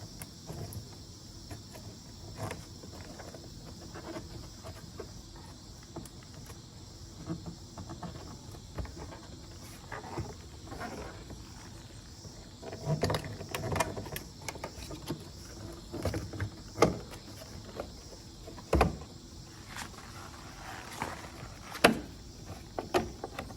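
Plastic trim clips being pried and bent off with a plastic tool: scattered clicks, scrapes and knocks, which come more often and more sharply in the second half.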